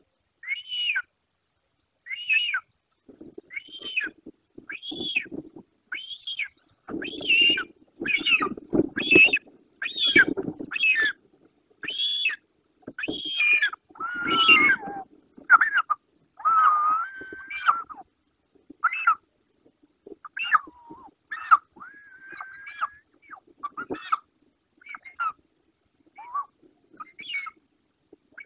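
Short-toed eagle calling: a long series of whistled, down-slurred calls, about one a second, a few of them longer and lower near the middle.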